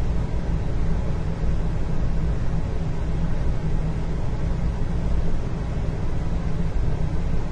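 Indoor room ambience: a steady low rumble with a fainter hiss above it, even throughout, with no distinct events.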